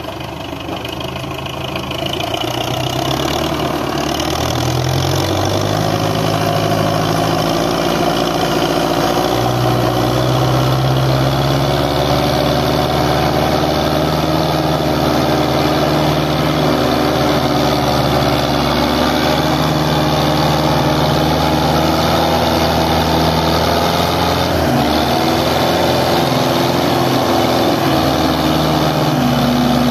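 Diesel engine of a Belarus tractor running hard under heavy load as it hauls a sugarcane-laden trolley. It gets louder over the first few seconds, then holds a steady note.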